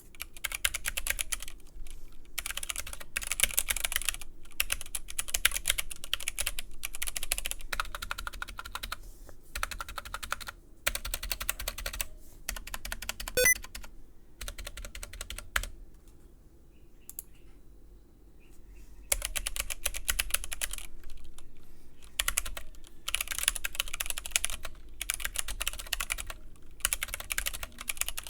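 Obinslab Anne Pro 2 60% mechanical keyboard being typed on in fast runs of keystrokes with short pauses and a quieter lull a little past halfway. It is a typing sound test comparing the keys before and after rubber O-rings are fitted under the keycaps to damp them.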